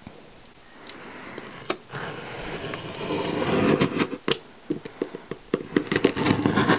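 Utility knife blade slicing through packing tape along the seam of a cardboard box: a scraping cut that builds through the middle, with scattered sharp clicks and taps of the blade and hands on the cardboard.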